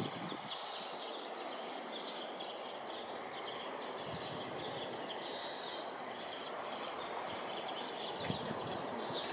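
Birds chirping in short, high calls over a steady background hum of city ambience.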